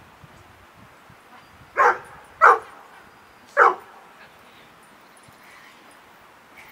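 A dog barking three times in quick succession, short sharp barks, the last after a slightly longer gap.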